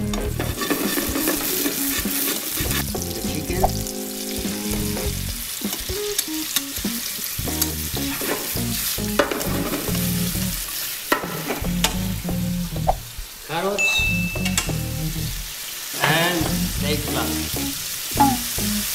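Hot oil sizzling in a nonstick frying pan as sliced onion and then chicken breast pieces fry, with knocks and scrapes of a wooden spatula stirring against the pan. Strips of carrot and vegetables are dropped in near the end.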